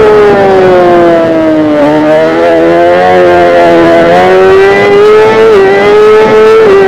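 Kawasaki ZX-10R's inline-four engine at high revs under way. Its pitch sags over the first two seconds, then climbs back and holds steady, with brief dips near the end.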